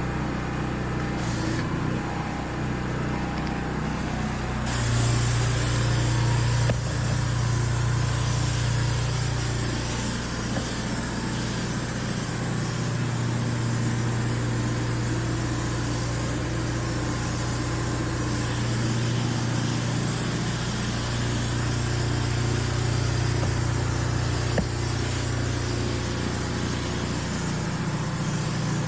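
An engine running steadily, a constant low hum under an even hiss that gets louder about five seconds in.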